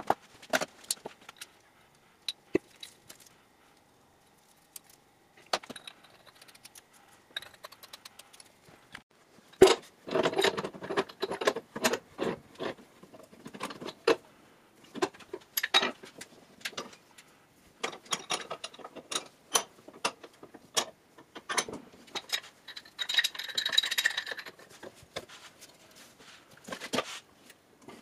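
Irregular metallic clinks and clanks of steel hand tools and black iron pipe fittings being handled, and a pipe wrench gripping and turning a threaded iron pipe clamped in a bench vise. A short scraping rattle comes a little past the four-fifths mark.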